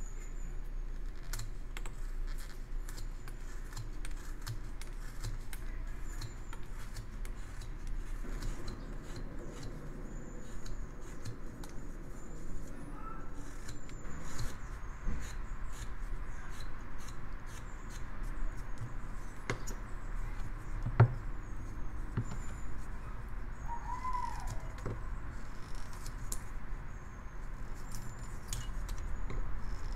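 Carving knife slicing a basswood block by hand: a steady run of short paring cuts, scraping and clicking as chips come away, with one louder knock about two-thirds of the way in.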